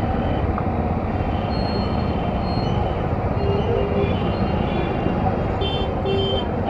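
Motorcycle riding slowly through busy street traffic: a steady, dense low engine and road noise. A few short high-pitched tones sound about four to six seconds in.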